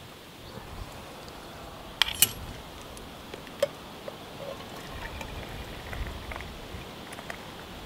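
Steel camping pot clinking sharply twice against its metal stand as it is lifted, with another clink a little later. Then the cooking water is poured off boiled potatoes through the gap under a lid into a metal mug, trickling.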